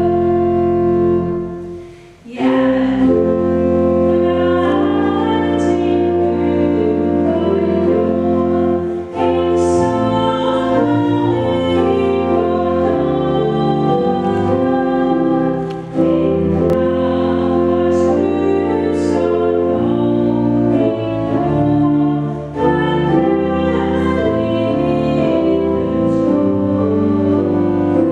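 Church pipe organ accompanying a woman singing a hymn, with a short break between lines about two seconds in and brief pauses between the later lines.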